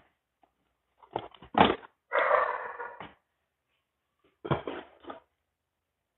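Handling noise: a few knocks and clatters, with a longer rustle about two seconds in and more knocks near the end, as a homemade air-conditioner timer box and nearby items are picked up and moved.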